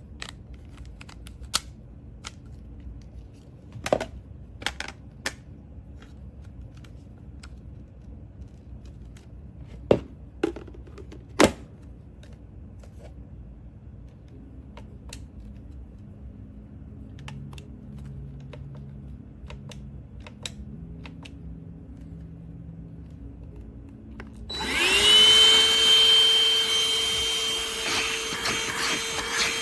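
Scattered clicks and knocks, then near the end a cordless handheld vacuum's motor switches on, its whine rising briefly and settling into a steady run.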